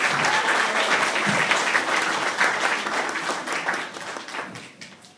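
Audience in a large hall clapping, a dense patter of many hands that dies away over the last second or so.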